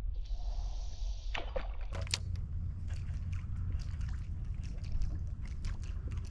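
Water sloshing and lapping against a kayak's hull, with scattered small clicks and knocks, over a low rumble from about two seconds in.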